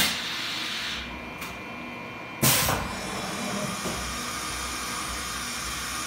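CNC milling machine's automatic tool change: a steady hiss of the running machine, with a loud sudden burst, like a pneumatic blast or clunk, about two and a half seconds in as the tool is swapped.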